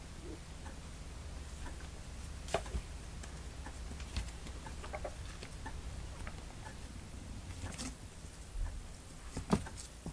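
Kittens' claws scrabbling and scratching on a corrugated cardboard scratcher as they climb and tussle, with scattered sharp scratches and knocks, the loudest near the end.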